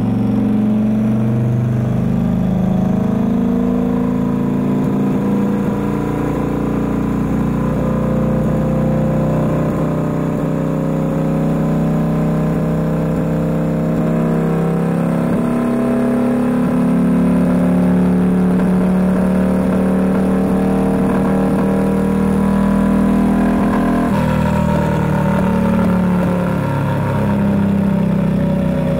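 Turbocharged Harley-Davidson V-Rod V-twin running on a dyno at light, part throttle, held at steady engine speeds that step up and down every few seconds. A whine falls in pitch over the last few seconds.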